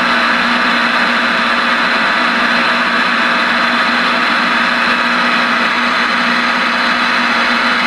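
Steady static from a CB radio receiver's speaker on an open channel: an even hiss with a steady low tone underneath.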